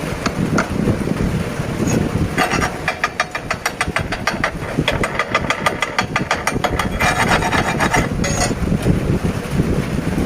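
Welding arc crackling in three runs of rapid irregular clicks, about two to eight seconds in, over a steady low rumble.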